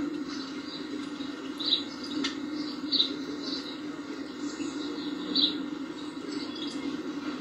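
Short high chirps every second or two, played through a television showing a cat-TV video of a mouse, over a steady low hum.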